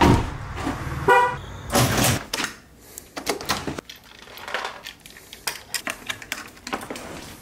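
A thump at the start, then a short car horn chirp about a second in. After that come a string of clicks and clatters: a door chain lock being slid and keys being hung on a rack.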